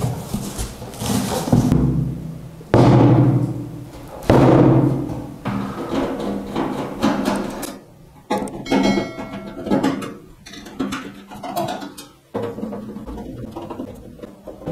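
Background music with deep drum hits that ring out, two of them loudest about three and four and a half seconds in.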